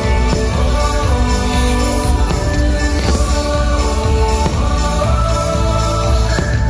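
Loud orchestral fireworks-show music with a choir singing. A few sharp firework bangs cut through it.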